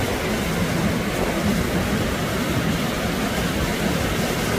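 Wind buffeting the microphone over the steady wash of breaking surf, a continuous rumbling rush with no distinct events.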